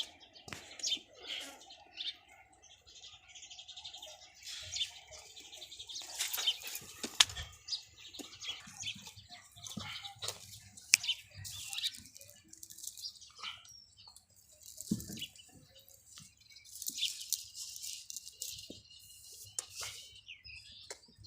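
Farmyard ambience: irregular rustles, knocks and clicks, with short bird chirps now and then.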